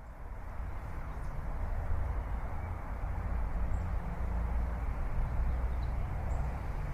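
Steady low rumbling outdoor background noise, with a few faint, short high chirps like distant birds.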